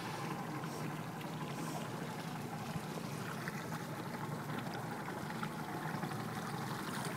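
Steady, quiet ambience on a small boat at sea: water lapping and trickling against the hull, with a low steady hum underneath.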